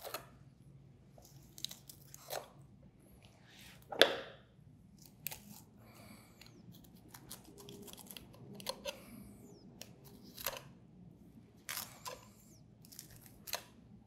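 Thin filleting knife cutting a fillet away from a flatfish's bones: soft, scattered crunching and scraping strokes as the blade runs along the rib bones, the loudest about four seconds in.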